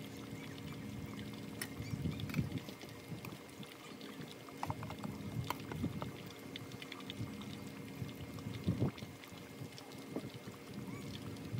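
Battered banana pieces deep-frying in hot oil: a steady sizzle with scattered crackles and pops.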